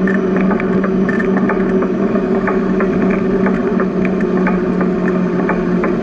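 Bicycle riding along a paved path: a steady hum of tyres and motion, with frequent small clicks and rattles.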